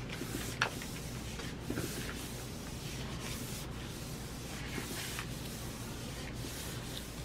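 Palms rubbing and pressing across a large sheet of drawing paper, faint soft papery swishes, burnishing it down onto a gel plate so the print gets good contact. A small tick about half a second in.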